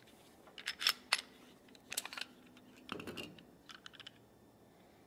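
Clicks and clacks of a Smith & Wesson Shield 9mm pistol being handled as its magazine is taken out and laid on the mat. The sharpest clicks come about a second in, more follow around two and three seconds, then a few lighter ticks.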